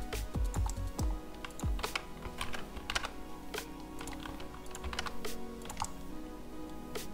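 Background music with held tones and a beat, over scattered clicks of a computer keyboard and mouse being operated.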